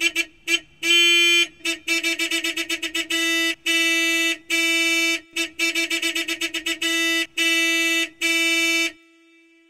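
Car horn honking: runs of rapid short beeps alternating with longer held blasts, all on one steady pitch, stopping about nine seconds in.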